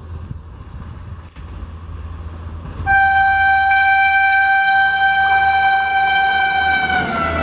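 WAP-7 electric locomotive's horn sounding one long, loud blast starting about three seconds in, over the low rumble of the approaching train. The horn's pitch drops near the end as the locomotive passes.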